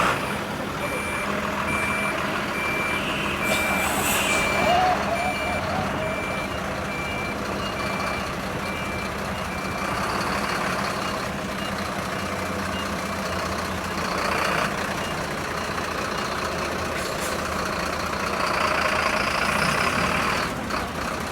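A large vehicle's reversing alarm beeping, about two high beeps a second, over its steady diesel engine. The beeping stops about nine seconds in, and the engine keeps running.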